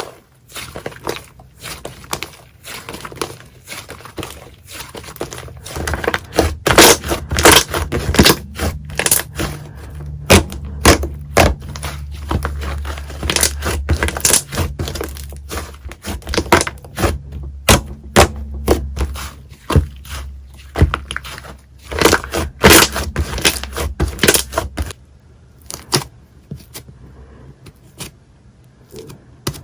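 Slime being squished and pressed by hand, giving a dense run of sharp, irregular crackling pops and clicks. A low hum sits under it through the middle stretch.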